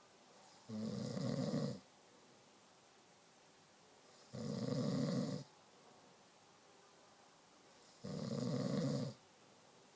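A sleeping person snoring with slow, even breathing: three snores about a second each, one every three and a half seconds or so, with quiet in-between.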